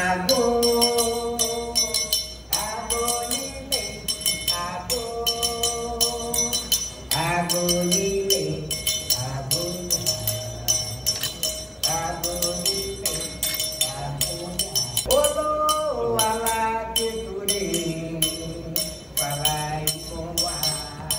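A woman singing a slow melody in long held notes, phrase after phrase, over jingling percussion like a tambourine or shaker.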